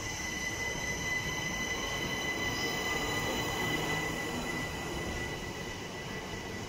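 Southern electric multiple-unit passenger train running past along the platform: a steady rumble of wheels on rail with a high, steady whine, and a faint motor whine rising slowly in pitch over the first few seconds as it gathers speed.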